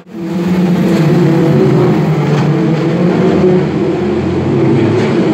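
Several stock car engines racing round the oval, a loud steady blend of engine notes with some revving. The sound dips out for a moment at the very start.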